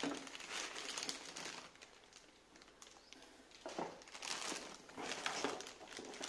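Plastic packaging bags crinkling and rustling as hands handle and pull at a boxed mixer grinder, with a few light knocks against the cardboard box. The handling comes in two spells, with a quieter lull in the middle.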